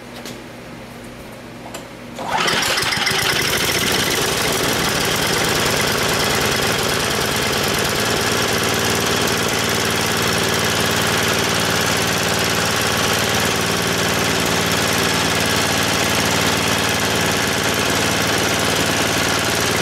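Tecumseh HSSK40 Snow King four-stroke single-cylinder snowblower engine, pull-started on its freshly rebuilt carburetor. It catches about two seconds in and then runs steadily.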